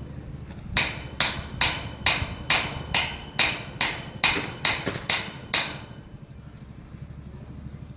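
Hammer driving a long rebar stake into the ground: twelve sharp, even blows at about two a second, then they stop.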